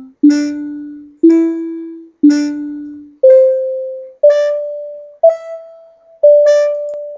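A simple melody from the Sound Sorcerer software synthesizer: a sine tone shaped by a piano-style envelope with a very quick attack, a 300 ms decay to about a quarter volume and over half a second of release. It sounds very electronic but sort of piano-ish. There is one note about every second, each starting sharply and dying away, and the tune steps up and back, then jumps higher for the last four notes.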